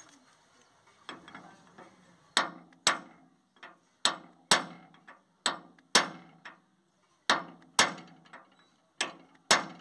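Hammer blows on a steel drift against a tractor trolley's wheel hub during a bearing change: sharp metallic strikes in pairs, about one pair every second and a half, each with a short ringing. A few lighter taps come first, about a second in.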